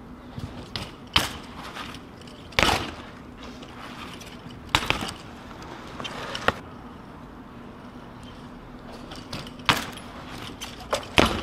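BMX bike clattering on concrete as it is ridden, hopped and landed: a string of sharp knocks and clacks about every one to three seconds, with a steady faint hum underneath.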